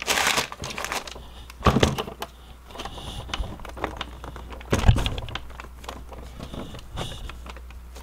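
Hands pressing and tapping along an HP Envy laptop's top case, giving scattered knocks and small plastic clicks as its clips are snapped into place, the loudest about five seconds in, over a low steady hum.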